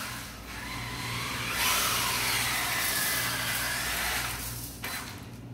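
Electric drive motor and gears of a WLtoys 10428 B2 1:10 4WD RC crawler whirring as it drives across a tile floor, with tyre hiss on the tile. The sound grows louder about a second and a half in as the car speeds up and nears, then falls away near the end.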